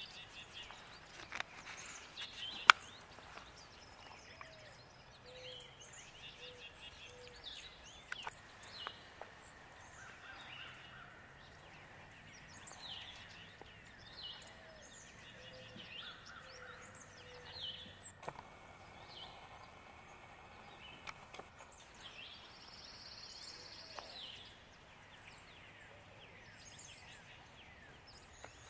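Several wild birds calling and singing in a spring woodland: scattered high chirps and short trills, with a low phrase of four or five soft cooing notes heard twice. There is a single sharp click about three seconds in.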